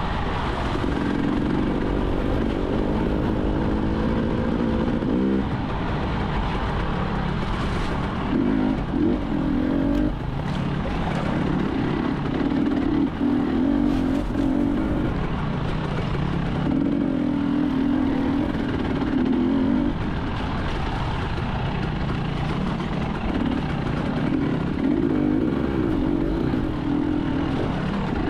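Enduro motorcycle engine heard from on the bike, revving up and dropping back again and again as the throttle is opened and shut, over a steady rushing noise.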